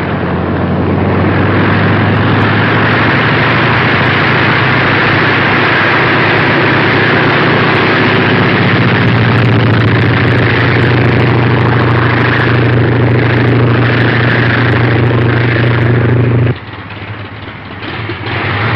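Biplane's propeller engine running with a steady drone as the plane takes off and flies. The engine sound cuts off abruptly a couple of seconds before the end, leaving a quieter background.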